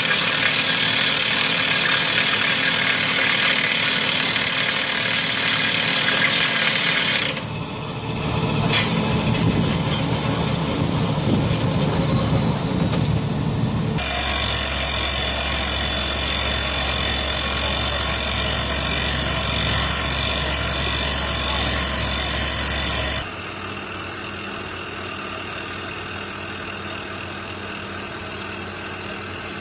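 Excavator-mounted hydraulic rock drill and the excavator's engine running under load, heard as dense mechanical noise in several spliced clips; the clip starting about three quarters of the way through is quieter.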